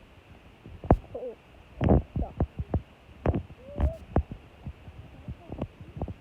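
A run of irregular knocks and thumps, with two short wavering squeaks among them.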